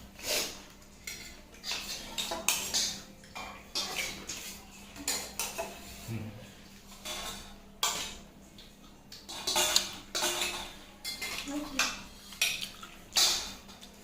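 Metal spoon clinking and scraping against steel dishes in a string of short, irregular strokes, as fuchka are filled and eaten.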